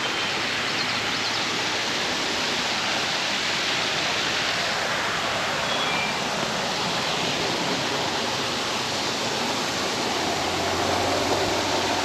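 Water pouring over a small creek dam in a steady rush.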